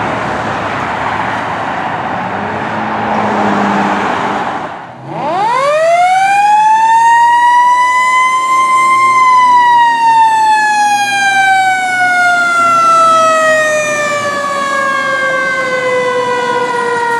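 Road traffic noise. About five seconds in, a mechanical fire siren spins up in a steep rising wail over about four seconds, then winds down slowly, its pitch falling steadily as it coasts.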